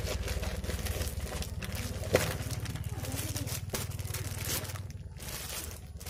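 Plastic courier mailer and the clear plastic wrapping inside it crinkling and rustling as they are handled and opened, with a sharp crackle about two seconds in, over a low steady hum.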